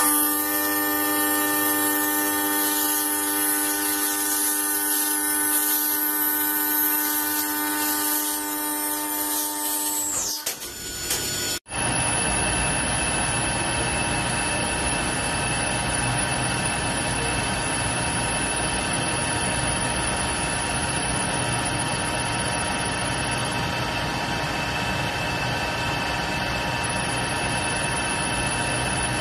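Machine-tool cutting noise in two parts. For the first ten seconds or so a machine runs with a steady whine made of several even tones. After a sudden change about a third of the way in, a metal lathe runs steadily while a small boring bar cuts inside the bore of the spinning metal part, giving an even cutting hiss with a faint high whine.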